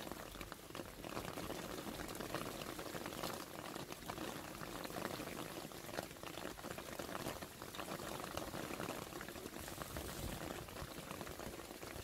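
Rain mixed with small hailstones falling on leaves, plant pots and wet paving: a steady patter of many small ticks.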